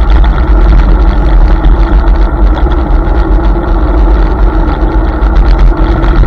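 Steady, loud wind rumble on the microphone with tyre and road noise from a Hiboy S2 Pro electric scooter riding over wet asphalt.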